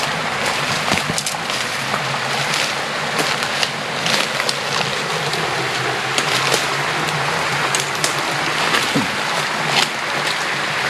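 Footsteps crunching and brushing through dense jungle undergrowth and leaf litter: a continuous rustle with many irregular crackles.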